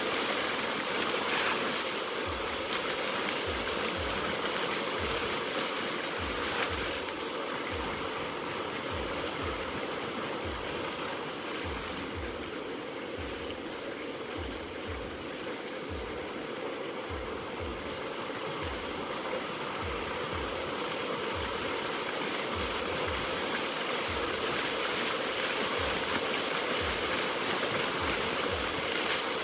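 Water fountain jets splashing: a steady rush of falling water that eases a little in the middle and builds again near the end.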